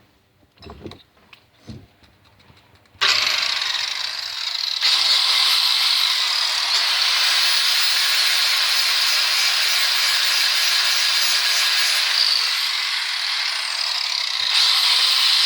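A few soft handling knocks, then about three seconds in an angle grinder with a flap disc starts and grinds a steel karambit blade: a steady, loud grinding noise.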